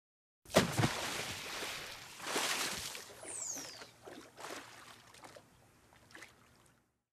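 Water splashing and sloshing. It starts sharply with a splash, swells again, then fades away to faint lapping.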